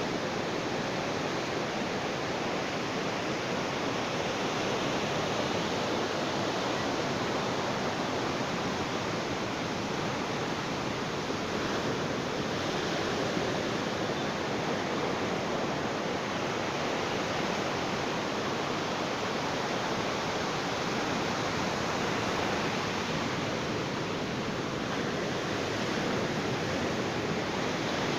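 Sea waves washing on a beach, a steady rushing surf with little rise and fall.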